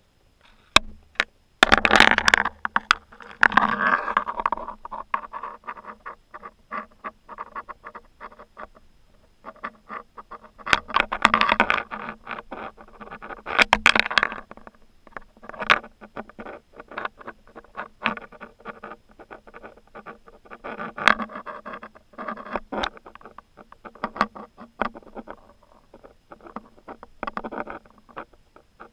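Irregular clicks, knocks and scrapes heard underwater through the GoPro's waterproof housing, most likely the camera's pole bumping and rubbing against the ice at the edge of the hole, with several louder bursts of scraping.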